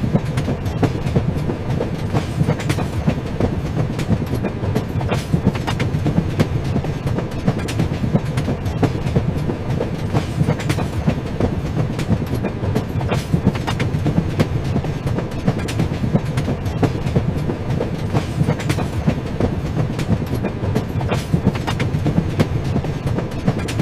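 Train running steadily on the rails: a continuous low rumble of the wheels, with a clickety-clack of frequent sharp clicks and knocks as they pass over the rail joints.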